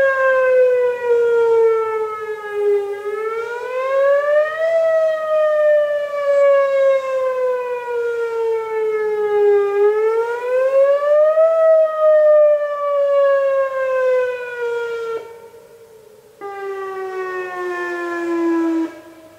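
City outdoor warning siren sounding a wail during its monthly test: the pitch rises quickly over about a second and a half, then falls slowly over about five seconds, twice over. Near the end the sound drops away for about a second, comes back still falling, then stops abruptly. A second, fainter siren can be heard overlapping.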